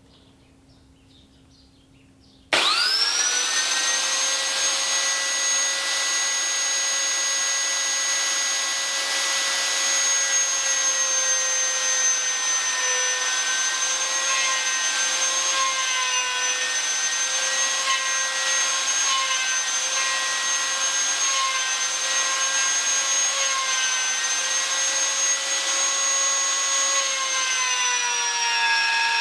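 Electric wood router switched on about two and a half seconds in, spinning up at once to a steady high whine. Its pitch dips slightly now and then as the bit cuts a cable channel in the wood, and sags a little near the end.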